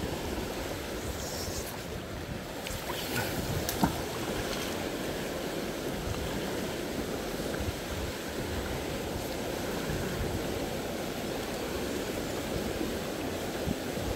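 Steady rushing of river water running over rapids, with a single sharp knock about four seconds in.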